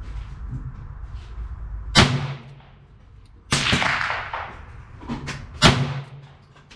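Taurus Model 66 .22 LR rimfire revolver firing: two sharp shots about three and a half seconds apart, with a bang between them that trails off over about a second, and a few light clicks.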